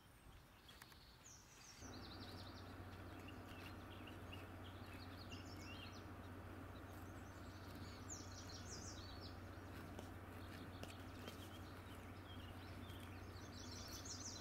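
Faint songbirds singing short, high trilled phrases again and again. About two seconds in, a steady low hum and hiss come in underneath and hold.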